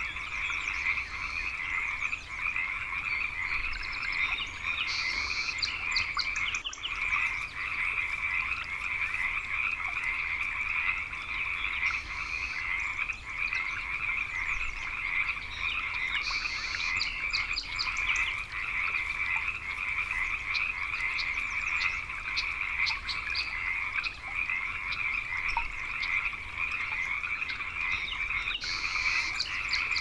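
A dense frog chorus calling continuously, with short bursts of rapid, higher-pitched trills now and then.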